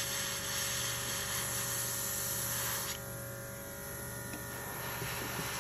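Airbrush spraying nail paint through a stencil: a steady hiss of air for about the first three seconds, then it stops. The airbrush machine's steady motor hum runs underneath throughout.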